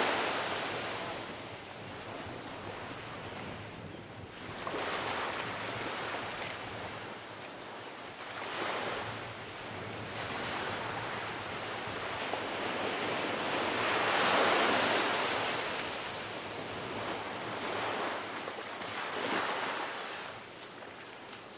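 Small ocean surf breaking and washing up a sandy beach, the wash swelling and fading every few seconds, loudest about two-thirds of the way through.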